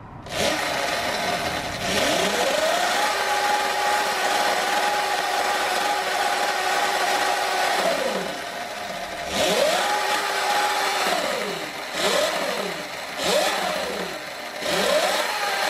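Sur-Ron electric dirt bike's motor and drivetrain free-revving with the rear wheel spinning in the air. It makes a whine that rises, holds for about five seconds and falls away, then a shorter rev, then three quick blips. A knocking can be heard as it slows down, which the owner puts down to swing arm bearings probably damaged by an impact.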